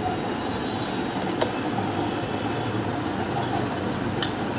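Steady background hum and hiss, with two sharp clicks: one about a second and a half in and one near the end.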